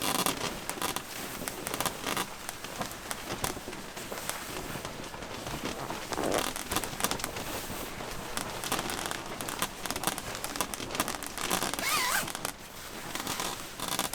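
Nylon sleeping bag being handled: fabric rustling and crinkling while its zipper is worked in scratchy runs.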